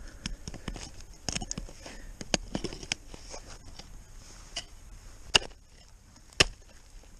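Ice axe and crampons working on snow-plastered ice: scattered crunches, scrapes and clicks, then two sharp strikes about a second apart near the end as the axe is planted.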